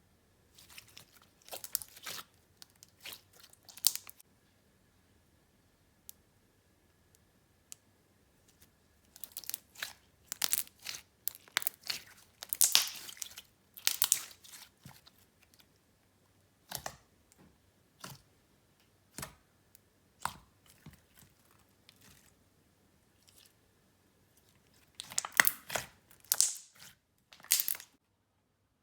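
Hands squishing, stretching and poking clear slime, making irregular clusters of sticky clicks, pops and crackles separated by short quiet pauses; the loudest bursts come around the middle and near the end.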